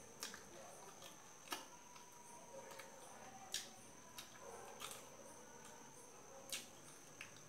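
Quiet chewing of fried fish, with a few sharp mouth clicks and smacks spread through it and a steady high-pitched whine in the background.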